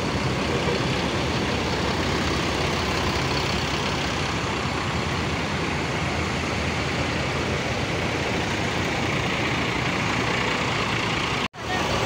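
Steady rumble of tour buses idling in a bus park, a continuous even engine noise with no horn sounding; it cuts out for an instant near the end.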